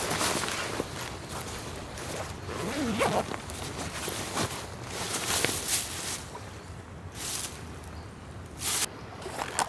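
Camping gear being handled: a series of short rustling swishes, a second or two apart.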